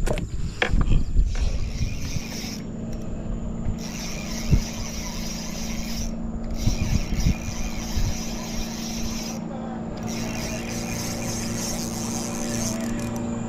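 A motor running steadily at an even pitch, rising slightly near the end, with a few light knocks over it. A high hiss cuts out three times for about half a second to a second each.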